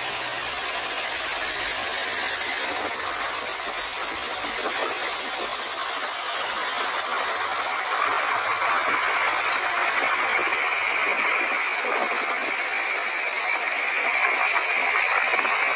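Steady rushing noise of sea surf and wind, growing louder about halfway through.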